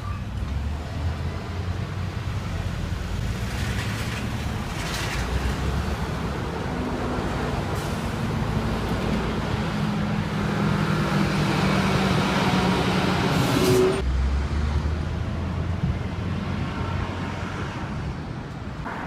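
Road traffic with a heavy vehicle's engine running close by, building to its loudest a few seconds before it drops off abruptly, leaving a lower steady traffic rumble.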